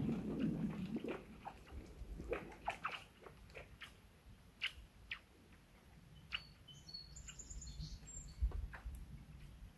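Thawing lake ice making a scattered series of sharp pings and short zinging chirps, the eerie 'space war' sounds of ice sheets shifting in spring. A low boom from the ice fades out in the first second.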